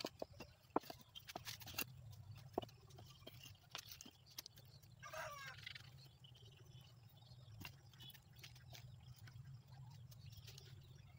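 Faint sharp clicks of clay brick tiles knocking together as they are set upright by hand, mostly in the first two to three seconds. A short warbling bird call about five seconds in, over a low steady hum.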